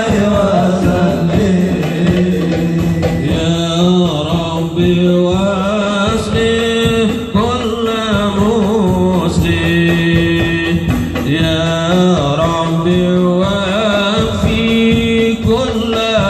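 Live marawis music played loud through Yamaha DBR15 powered PA speakers: men's voices singing a devotional chant over a steady beat of hand-struck frame drums.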